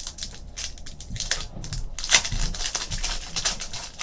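Foil trading card pack wrapper crinkling and crackling as it is pulled and torn open by hand, in a quick irregular run with the loudest crackle about two seconds in.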